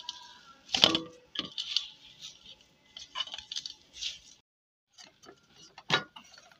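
Bangles jingling and hands knocking against a steel bowl while maize-flour dough is kneaded by hand: a run of irregular clinks and scrapes, with a sharp knock just under a second in. A short pause follows, then one more sharp knock about six seconds in.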